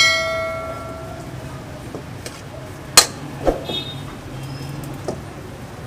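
Metal spatula knocking against a steel bowl: a ringing clang at the start that dies away over about a second, then sharp clinks about three seconds in, over a low steady hum.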